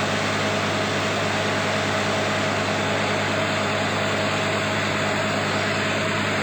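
Truck-mounted water well drilling rig running steadily: an even engine drone with a constant hum under a dense, unchanging hiss.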